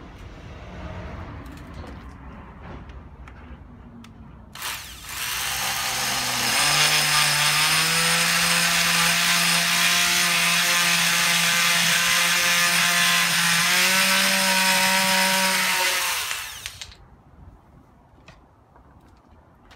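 Corded oscillating multi-tool with a toothed wood blade cutting through a strip of wooden trim. It starts with a click about five seconds in, runs as a loud, steady buzz for about eleven seconds, then winds down as the cut finishes.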